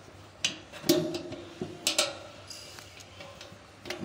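A few light knocks and clicks, several with a short ring, from a metal bracket, bolt and nut being handled and fitted by hand to the back of a plastic satellite dish. They come close together in the first half, then die down to quieter handling.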